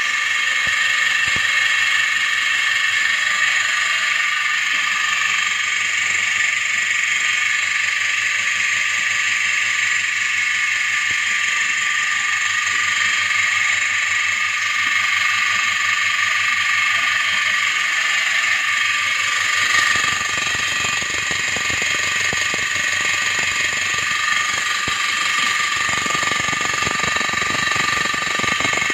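Double-bucket milking machine's vacuum pump running with a steady high whine and a rattle underneath, which turns rougher about twenty seconds in.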